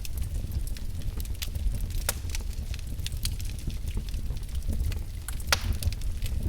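Wood fire crackling in a fireplace: irregular sharp pops and snaps over a low, steady rumble of flames, with a louder pop about two seconds in and the loudest about five and a half seconds in.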